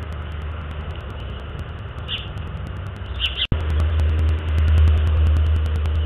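Steady low outdoor rumble with two brief high bird chirps, about two seconds in and just after three seconds. The sound drops out for an instant at about three and a half seconds, and the rumble is louder after it.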